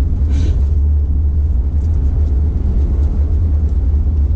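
Steady low rumble of a car's road and engine noise heard inside the cabin while driving, with a brief soft rustle about half a second in.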